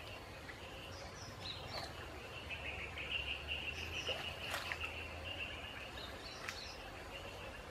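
Insects chirring in a steady high band that swells in the middle, with a few short bird chirps and a couple of sharp clicks.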